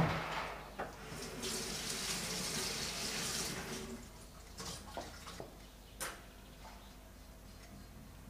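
A sharp knock, then water running for about two and a half seconds, then a few light knocks.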